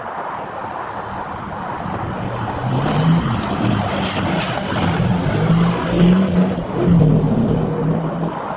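Short-wheelbase Mitsubishi Pajero SUV driving past on a dirt track, its engine revving up and down several times. The engine is loudest in the middle as the vehicle passes close by, then fades as it drives away.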